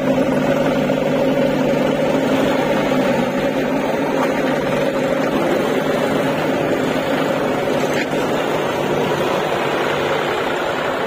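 John Deere tractor's diesel engine running under load as it pulls a trailer full of earth past close by and drives off. Its steady engine tone is clearest in the first few seconds and becomes less distinct as the tractor moves away.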